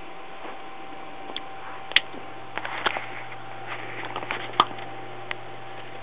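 African grey parrot's beak tapping and nibbling at the camera: scattered small clicks, with two sharp taps about two seconds in and again near four and a half seconds, over a steady low hum.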